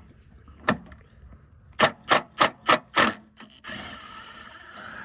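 Five sharp strikes in quick succession, about three a second, knocking at a truck front-end part that is stuck fast. They are followed by a steady rushing noise lasting about a second and a half.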